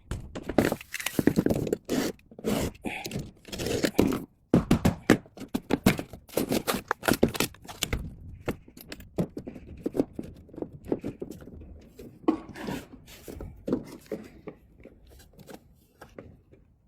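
Irregular scraping, rustling and knocking of electrical wire being handled and pulled, busiest in the first half and thinning out toward the end.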